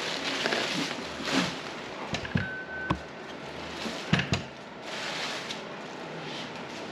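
Handling noises from unpacking a boxed scroll saw: packing material rustling, with scattered knocks and clicks and a brief squeak about two and a half seconds in.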